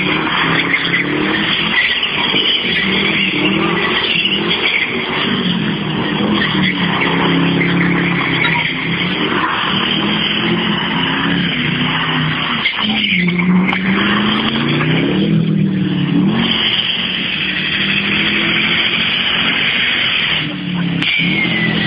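A car doing a burnout: the engine is held at high revs, rising and falling again and again, over the continuous screech of spinning tyres.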